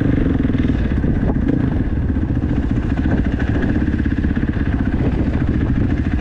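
KTM 450 SX-F dirt bike's single-cylinder four-stroke engine running at a steady pace, a fast even pulse of firing strokes with no big revs.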